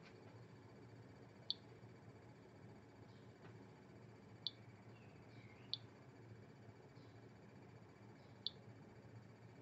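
Geiger counter's piezo buzzer giving four sharp clicks at irregular intervals, each click a count from its SBM-20 Geiger-Müller tube at natural background radiation.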